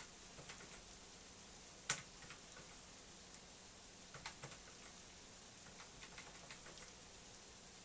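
Faint, scattered clicks, one sharper than the rest about two seconds in, then small runs of quicker clicks near the middle and later on.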